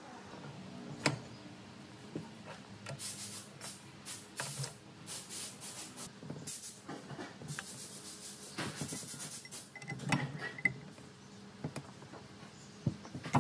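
An adjustable wrench turning the arbor nut that holds a bench grinder's stone wheel: a sharp metal clink about a second in, then a run of short scraping rasps, with more knocks near the end.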